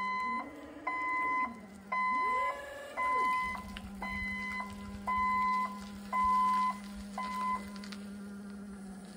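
Hyundai forklift's backup alarm beeping about once a second while its engine revs up and down, then settles into a steady run. The beeping stops near the end.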